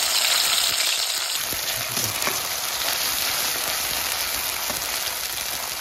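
Sliced onion sizzling in hot mustard oil in a steel wok: a steady hiss that eases slightly over the few seconds.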